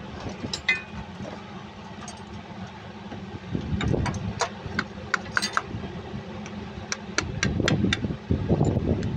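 Ball-peen hammer tapping a metal drift to drive the front crankshaft oil seal into the front cover of a KTA50 Cummins engine: a series of sharp metallic taps in two runs, starting about four seconds in. A steady low mechanical hum runs underneath.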